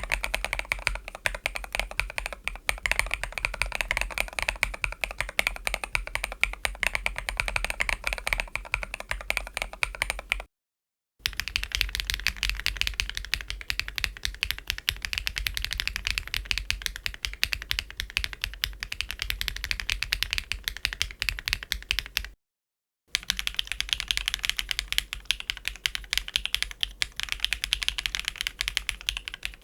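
Fast, continuous typing on mechanical keyboards fitted with Keygeek Klein Blue linear switches: dense key clacks and bottom-outs. They come in three takes split by short pauses, the first lower-pitched and the later two brighter.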